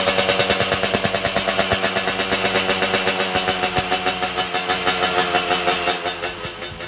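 Yamaha RX-King's two-stroke single-cylinder engine running with an even pulsing beat, dying down near the end.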